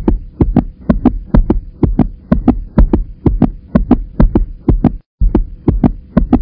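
Heartbeat-style sound effect: deep thumps in quick, evenly spaced pairs over a faint steady hum. It cuts out for a moment about five seconds in, then carries on.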